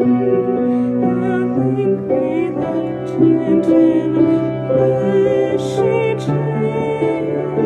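Slow background music with long held notes that change every second or two.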